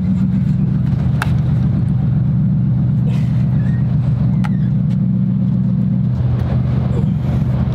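A boat's engine running steadily at an even pitch, with a few light knocks over it.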